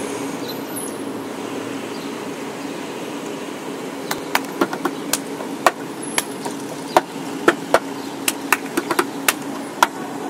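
Cup-song percussion: hand claps and a cup knocked and tapped on a wooden box top, starting about four seconds in as a quick, uneven rhythmic pattern of sharp clicks. A steady low hum runs underneath.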